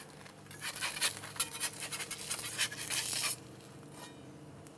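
Metal spatula scraping and clicking against a hot steel plancha plate as slices of toast are slid up and turned over, a quick run of short scrapes that stops about three and a half seconds in.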